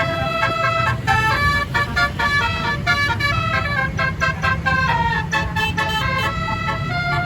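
A bus's Basuri 36-note telolet musical horn playing a quick tune of short, changing notes, with a held note at the start and another near the end, over a steady low engine rumble.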